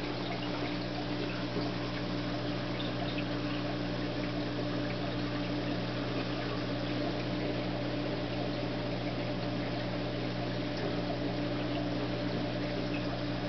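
Reef aquarium pumps humming steadily over an even wash of circulating water.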